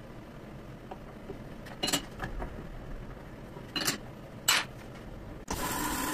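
Metal clinking a few times, like tools or metal parts being handled, then a machine abruptly starts running steadily about five and a half seconds in.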